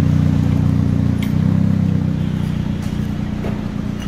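Toyota Corolla Altis four-cylinder engine idling through an aftermarket Akrapovič-style dual exhaust with its remote-controlled valve open: a loud, deep, steady idle drone that eases slightly toward the end.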